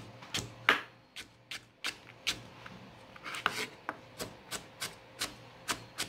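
Chef's knife chopping a carrot into small cubes on a plastic cutting board: short sharp knocks of the blade on the board, uneven at first and then settling to about three a second. One longer, scraping stroke about three and a half seconds in.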